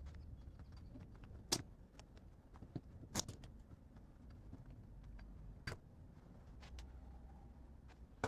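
A few sharp, separate clicks and knocks from small parts and tools being handled during work on a motorcycle cylinder head, over a low steady hum.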